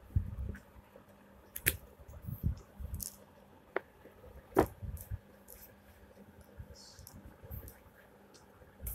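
Paperback textbooks being handled and laid down on one another: scattered soft thumps and a few sharp clicks and page rustles, the sharpest click about halfway through.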